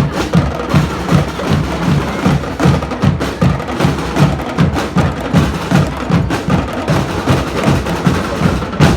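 School drum and lyre corps playing: marching drums beat a steady rhythm of about four strokes a second, with bell lyres carrying a melody above.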